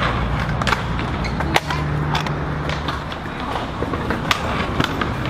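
Hard skate wheels rolling over a concrete skate park surface, a steady low rumble, broken by several sharp clacks and knocks against the concrete. The loudest clack comes about one and a half seconds in.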